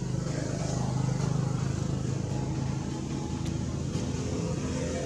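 An engine running steadily, with a low hum.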